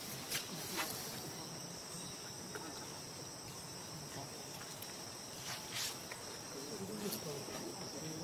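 Steady high-pitched insect chorus, a continuous buzz on two high pitches, with a few faint short clicks scattered through it.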